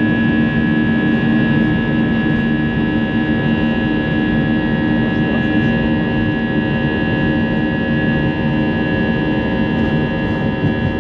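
Jet airliner's engines running steadily, heard inside the passenger cabin: an even rushing noise with several constant humming and whining tones, no change in pitch.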